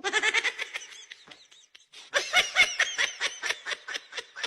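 A person laughing in two bouts of quick, high-pitched 'ha-ha' pulses, with a short pause between them about a second in.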